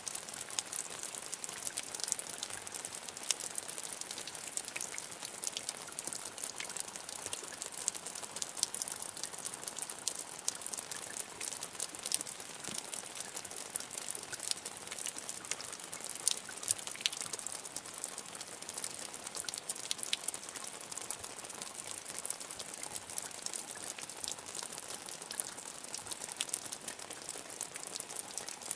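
Medium rain falling steadily, a constant patter of many individual drops ticking on a hard surface.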